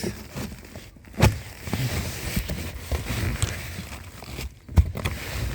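Hands groping around a car's dashboard and interior trim, with rustling and scraping and two sharp plastic knocks, one about a second in and one near the end.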